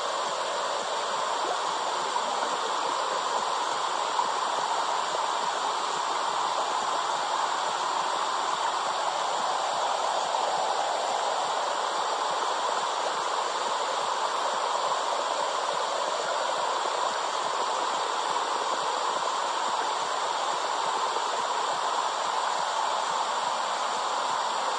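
Womb sound: a steady, even whooshing hiss with no heartbeat or other beat.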